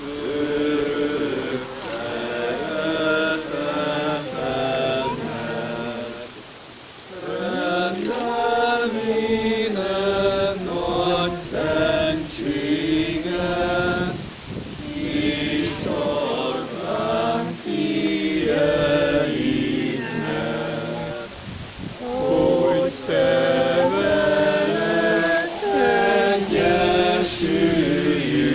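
A group of voices singing a Hungarian church hymn, holding each note and moving in steps, with a short break between phrases about six seconds in.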